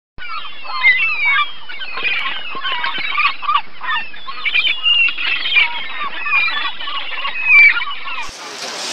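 A flock of gulls calling, many loud squawks overlapping. Near the end it cuts off suddenly to a steady street hubbub.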